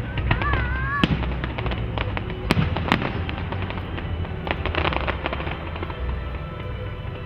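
Fireworks bursting overhead: sharp bangs about one, two and a half and three seconds in, and a run of crackling around five seconds in, over a steady low rumble.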